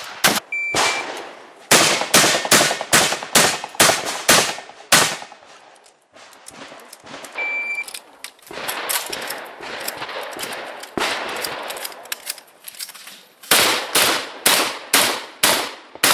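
Semi-automatic competition shotgun fired in rapid strings of about two to three shots a second: a long string near the start, a lull with a single shot around the middle while the shooter moves, then another fast string near the end.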